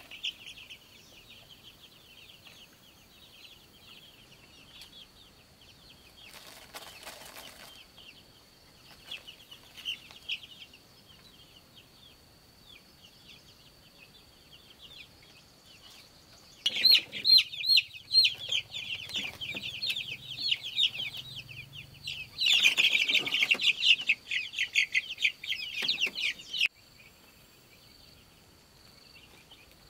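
Chick peeping in quick, repeated high calls, faint at first, then loud and insistent from a little past halfway, with bursts of rustling, until it cuts off suddenly near the end. A steady high insect whine runs underneath.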